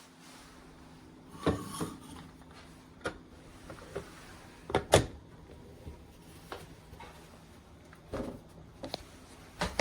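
Scattered knocks and clatters of things being handled and set down, loudest about five seconds in, over a faint steady low hum.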